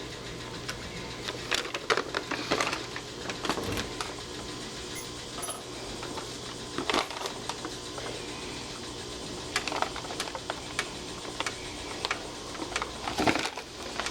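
Irregular mechanical clicks and rattles of a Kwikset Kevo deadbolt lock being worked by hand, in small clusters, over a steady low hum.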